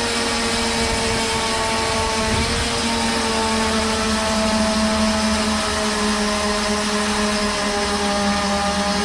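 Winch motor running continuously with a steady pitched whine that wavers slightly in pitch, dragging a heavy pine log into place.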